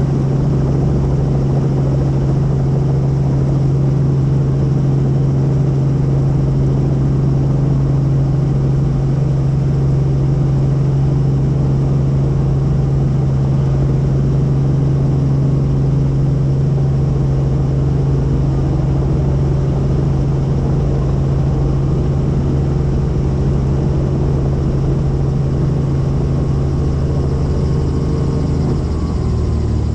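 Helicopter in flight: a loud, steady low drone from the rotor and turbine, with its main tone shifting in pitch near the end.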